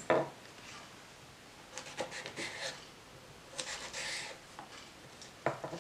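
Kitchen knife cutting a green chile pepper on a wooden cutting board: quiet scraping slices about two and four seconds in, with a few light knocks of the blade on the board.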